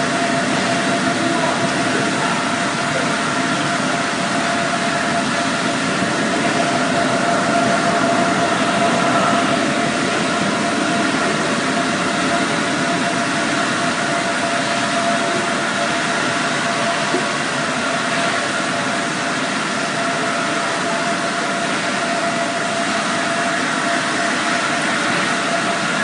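Gold-concentrating shaking tables running: a steady machine drone with a constant hum, over the hiss of water washing across the table decks.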